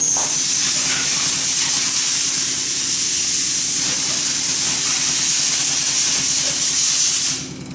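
Common-rail diesel injector test bench running a Delphi 33800-4A710 injector, freshly fitted with a new valve and cleaned: a loud, steady hiss of high-pressure fuel spray over the low hum of the bench's drive and high-pressure pump. The hiss cuts off suddenly near the end.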